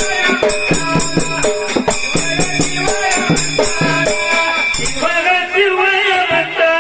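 Dhangari ovi folk music: held instrumental chords over a quick, steady rattling percussion beat, with a man's singing voice coming in about five seconds in.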